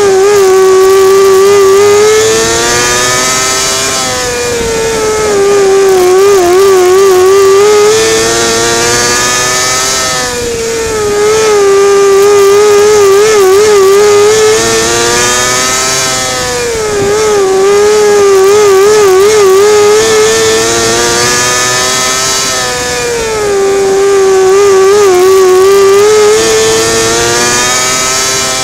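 600cc winged micro sprint car's engine at racing speed on a dirt oval: the revs climb down each straight and drop back into each turn, about twice a lap. The note wavers in the turns.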